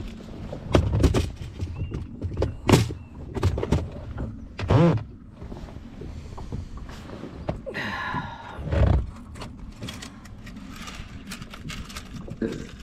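Plastic tackle boxes being handled: a string of separate knocks and clicks as lids are worked and the boxes are set down and moved about on a plastic boat bench.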